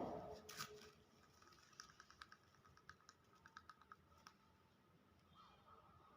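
Near silence with faint, irregular clicks and taps, some in quick runs, fading out after about four seconds.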